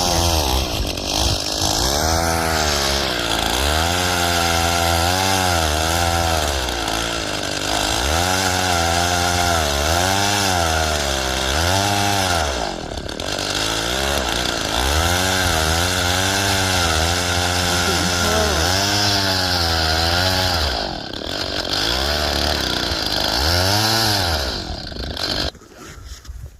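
Gas-powered ice auger's small engine revving up and down over and over as it bores through the ice, easing off briefly twice and cutting out near the end.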